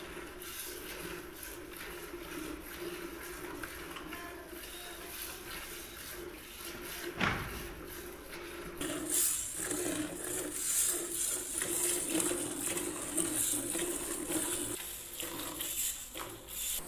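Cow being milked by hand: streams of milk squirting into a pail in a pulsing hiss that grows louder about nine seconds in. A single knock sounds about seven seconds in.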